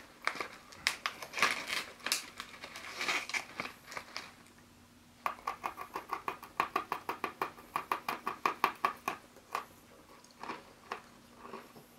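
Foil snack bag crinkling as a stick is drawn out, then a crisp Glico Pretz baked pretzel stick being crunched in quick, even bites, about six a second, for some four seconds starting about five seconds in, trailing off into a few last crunches.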